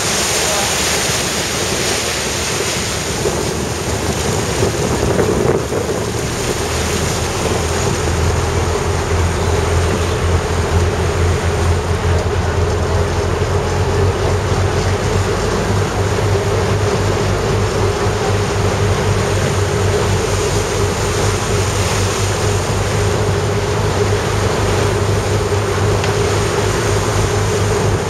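Small passenger ferry under way: a steady low engine drone under the rush of water along the hull and wake, with wind buffeting the microphone. The engine hum grows stronger about eight seconds in.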